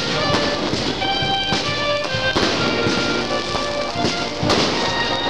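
Music playing with fireworks going off through it: irregular sharp bangs and crackling.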